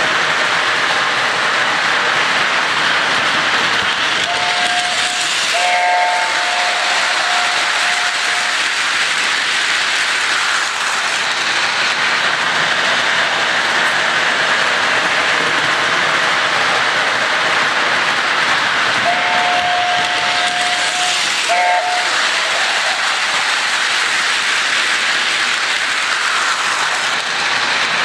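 Model train set steam locomotive running with a steady hiss, its whistle sounding in short blasts about five seconds in and again around twenty seconds in.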